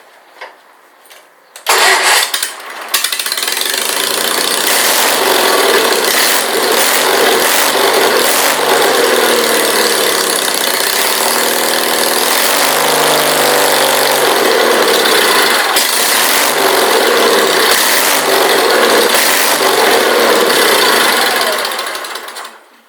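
Sears SS16 garden tractor engine, exhausting through a straight pipe, is restarted about two seconds in. It catches quickly and runs loudly and steadily, then dies away just before the end when it is shut off.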